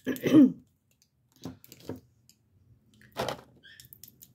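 Light clicks and taps of metal-cased lipstick tubes knocking together as they are handled. A short hummed vocal sound comes at the start, and a brief noisy burst about three seconds in.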